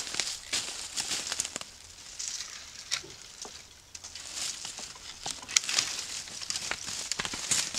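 Footsteps crunching through dry leaf litter, with sticks and twigs snapping underfoot at irregular moments; the sharpest snap comes a little past halfway.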